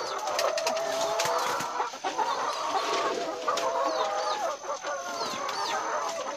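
A flock of caged laying hens clucking and calling over one another, many birds at once, with no pause.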